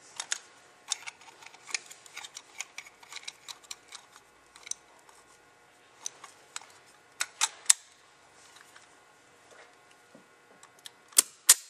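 Scattered sharp clicks and light metal knocks of a rebuilt spray gun and its fittings being handled, as it is set up for an air pressure test of its fluid section. A few louder clicks come about seven seconds in, and two more near the end.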